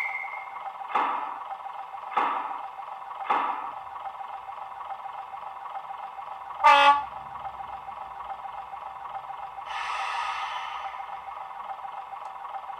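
Soundtraxx Econami DCC sound decoder in a model Class 121 railcar, playing a first-generation DMU's diesel idling through the model's small speaker. Three short bursts come about a second apart in the first few seconds, a single short horn toot about halfway, and a longer hiss a little before the end.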